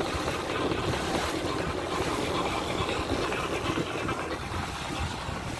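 Boat under way at sea: its engine running steadily, with water rushing past and wind buffeting the microphone.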